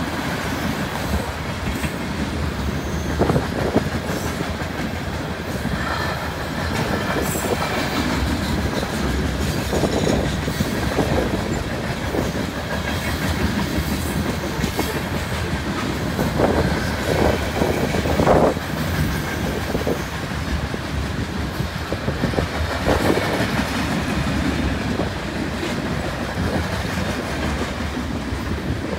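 Freight train of covered hopper cars rolling past: a steady rumble of steel wheels on rail with clickety-clack over the rail joints and scattered knocks and clanks between the cars.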